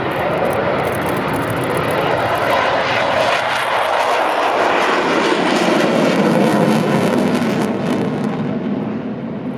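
F-16 fighter jet engine noise as the aircraft passes, with the pitch of the noise dropping about halfway through and the sound easing near the end.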